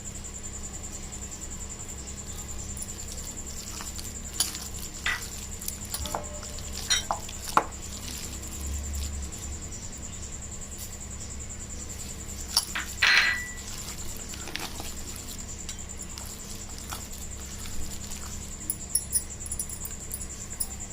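Scattered clinks and taps of a spoon against a mixing bowl as ingredients are added, with one longer ringing clink about midway, over a steady faint hum.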